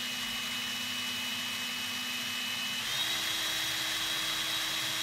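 24 V cordless drill running fast with a small bit cutting into a plastic wing nut at an angle. A steady motor whine over a hiss, stepping up in pitch about three seconds in.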